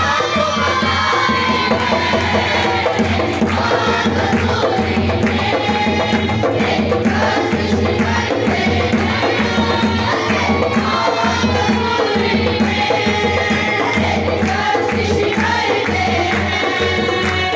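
Urdu Christian worship song (masihi geet) sung live by a woman and two younger singers into microphones, with harmonium accompaniment and a steady, evenly pulsing hand-percussion beat.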